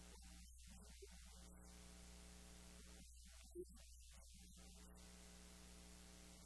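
Near silence: a steady low electrical hum over faint hiss, with one faint short blip a little past the middle.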